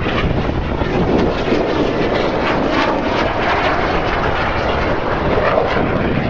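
Red Arrows BAE Hawk T1 jet flying past, a steady rushing jet-engine noise.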